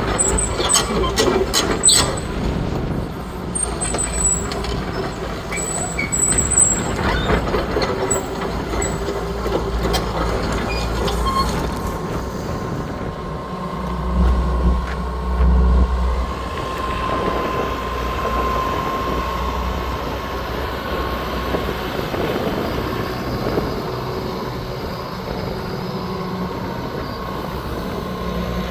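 Hitachi EX120 hydraulic excavator running, its diesel engine making a steady low rumble with a thin hydraulic whine. Repeated metallic clanks and knocks sound through the first dozen seconds, and the engine swells louder briefly about halfway through.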